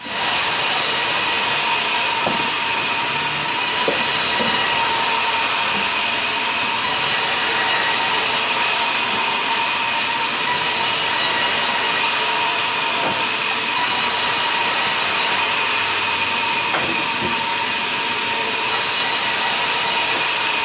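Large sawmill band saw running and cutting lengthwise through a log as it is pushed along the table: a steady, noisy whine that does not let up. A few light knocks of wood being handled.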